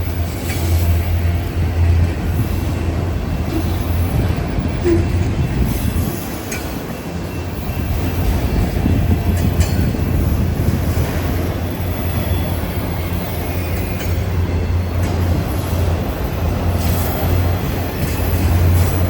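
Freight train passing: a steady low rumble of its cars rolling on the rails, with a few faint clicks.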